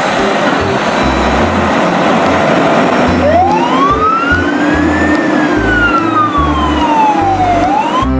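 A heavy vehicle's engine running, joined about three seconds in by a siren wail that rises slowly, falls off over a couple of seconds and starts to rise again near the end.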